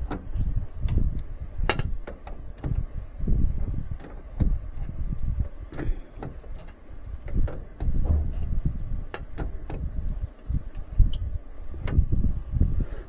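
Irregular clicks, knocks and rubbing of hands and tools working at an air handler's drain fitting, screwing a water safety switch down into it.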